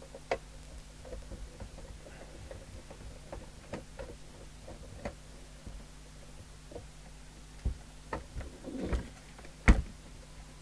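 Small clicks and taps of the metal covers of a York JCB863 CB radio being unscrewed and lifted off, with a busier run of knocks in the last few seconds and one sharper knock near the end. A faint steady low hum runs underneath.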